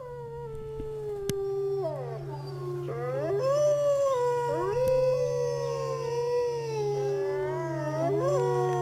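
A pack of wolves howling in chorus: several long howls overlapping, each gliding slowly up and down in pitch, over a steady low hum.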